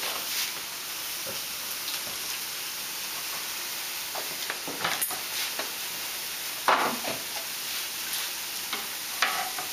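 Turkey cutlets sizzling in frying pans, a steady high hiss, with a few short knocks from handling things on the counter, the loudest about seven seconds in.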